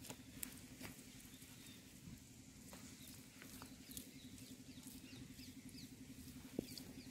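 Near silence: faint outdoor background with a low steady hum, a few small clicks and some faint high chirps.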